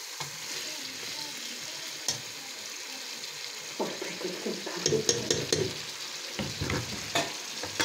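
Chicken karahi sizzling and frying in a metal pot while a spatula stirs it, scraping and knocking against the pot. The frying hiss is steady, and the spatula's sharp clicks come several times, most of them about five seconds in.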